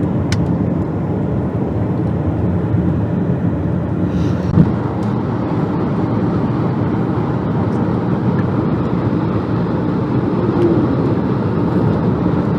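Car driving at a steady speed: engine and tyre rumble heard from inside the cabin, with one short thump about four and a half seconds in.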